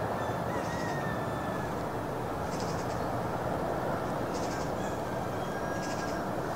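Steady wind noise buffeting the microphone, with gulls calling several times.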